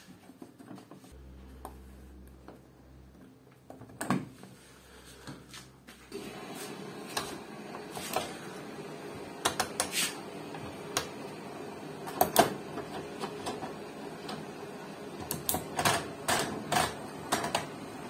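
Washing-machine control knobs clicking as they are turned through their detents. The sharp clicks come irregularly, from about four seconds in, over a steady background noise that starts about six seconds in.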